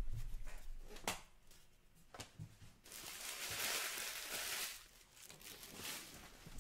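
Trading card packs and wrappers being handled: a few light taps and clicks, then a crinkling, tearing rustle of a foil pack wrapper lasting nearly two seconds, starting about three seconds in.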